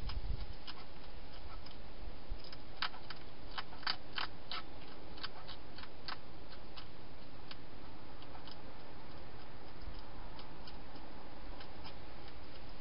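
Wild hedgehog crunching dry food inside a plastic feeding box: irregular crisp clicks, most frequent in the first half, over a steady hiss.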